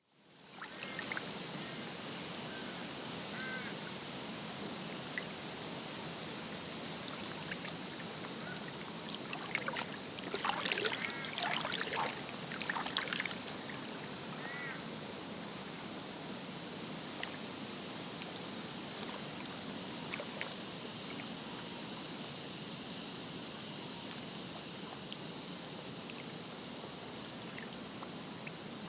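Lakeside ambience: steady lapping, trickling water with a burst of duck quacking about ten seconds in, lasting a few seconds, and a few short bird chirps.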